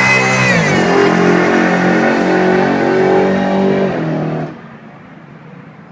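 Supercharged Chevrolet small-block 350 V8 at full throttle with a high supercharger whine over the exhaust. All of it drops in pitch about half a second in as the car passes, then carries on pulling away until it falls away sharply about four and a half seconds in.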